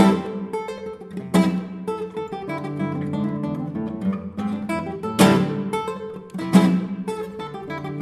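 Solo classical guitar playing a folk tune: a melody of plucked notes broken by four loud strummed chords, the first right at the start and the others about a second and a half, five and six and a half seconds in.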